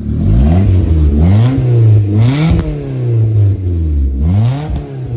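Car engine being revved with its exhaust cut open ahead of the muffler: loud, the pitch rising and falling several times as the throttle is blipped.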